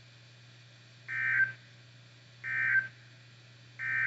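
NOAA Weather Radio sending the EAS/SAME end-of-message data bursts: three short, identical buzzy digital tone bursts about a second and a half apart, marking the end of the warning broadcast. A steady low radio hum runs underneath.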